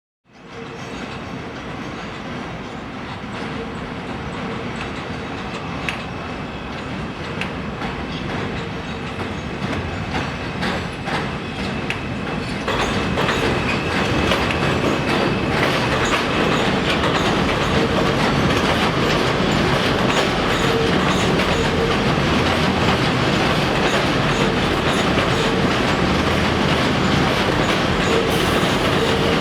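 N/Q subway train running on the elevated track beside the school, a continuous heavy noise that gets markedly louder about 13 seconds in and stays loud, with a steady whine over it.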